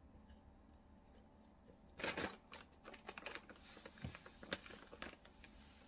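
Quiet at first. About two seconds in, a run of irregular light clicks and taps starts, with some rustling, as things are handled; it goes on until shortly before the end.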